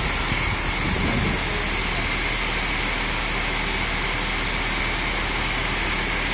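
Motor vehicle engine idling steadily, a constant low hum under an even hiss.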